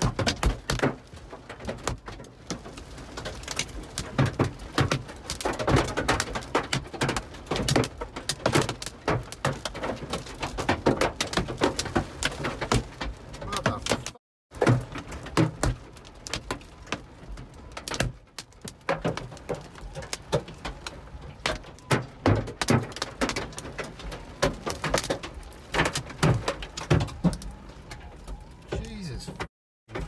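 Hailstones the size of cricket balls pounding a car's roof and windshield, heard from inside the cabin as a dense, irregular hammering of hard knocks and thuds.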